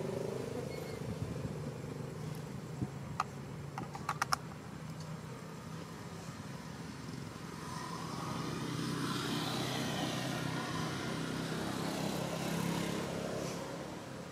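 Road traffic: a low steady engine hum, then a vehicle passing that swells over several seconds and fades near the end. A few sharp clicks come about three to four seconds in.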